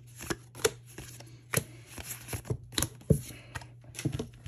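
Pokémon trading cards being flipped through by hand: a run of sharp, irregular card snaps and slides.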